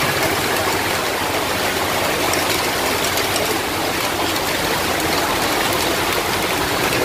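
Heavy monsoon rain pouring down, with muddy runoff flowing along the road; a steady, dense hiss.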